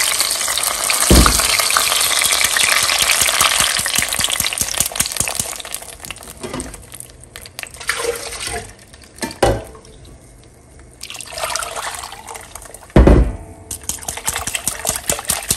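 Blended tomato and guajillo chile sauce pouring and splashing through a metal mesh strainer into a clay pot. The pour is heaviest for the first several seconds, then comes in shorter spurts, with a few dull knocks.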